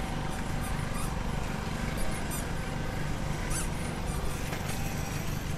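Outdoor park ambience: a steady low rumble with a few short, high-pitched chirps scattered through it.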